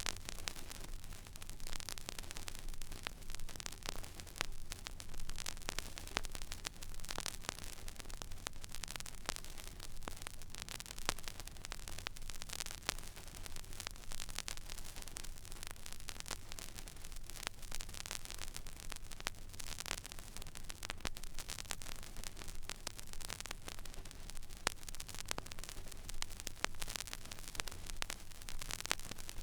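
Stylus tracking an empty vinyl record groove: steady surface hiss with dense crackle and frequent small pops, over a low rumble.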